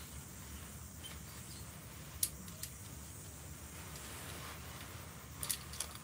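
Camping gear being handled: a few sharp clicks, one about two seconds in and a quick cluster near the end, over a steady low rumble.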